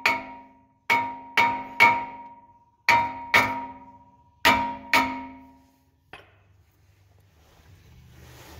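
Front brake rotor of a 2017 Acura MDX, a cast-iron disc, struck hard about eight times in quick groups of two or three over five seconds, each blow ringing out like a bell and fading, then one lighter knock. The rotor is being beaten to loosen it on the hub so its seized retaining screw can come out.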